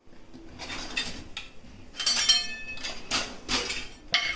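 A kitchen drawer pulled open and stainless steel utensils clattering as a small steel bowl is taken out and set down on the countertop. There are several separate clinks, and one about two seconds in rings briefly.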